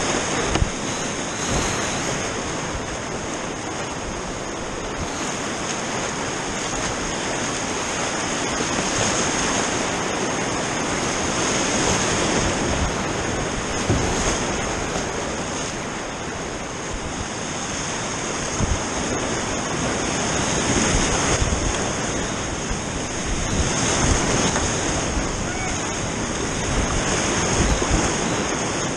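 Whitewater rapids rushing around a kayak, a steady dense roar of churning river water with wind and splashes buffeting the microphone and irregular low thumps.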